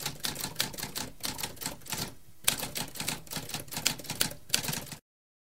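Typewriter keys clacking in a quick, uneven run of strokes, with a brief pause about two seconds in, cutting off abruptly near the end.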